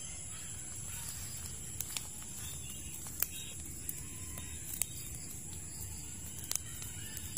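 Fire of dry palm fronds burning under a goose carcass that is being singed, a low steady rush with irregular sharp crackles and pops.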